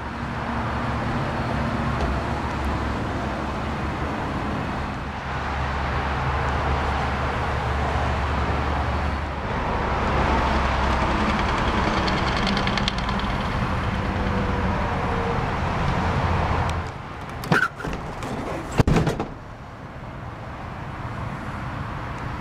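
Ford Explorer Sport Trac's 4.0-litre single-overhead-cam V6 idling steadily. Two sharp clunks come about 17 and 19 seconds in, as the truck bed is opened.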